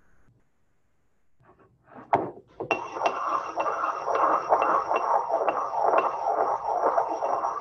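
Pestle scraping and clinking around a mortar in steady strokes about twice a second, mixing a gum acacia, oil and water emulsion. The strokes begin about three seconds in, after a single sharp clink.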